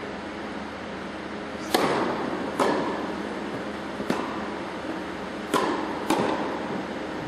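Tennis rally: a ball struck by rackets and bouncing on the court, five sharp pops that echo around an indoor tennis hall over a steady hum.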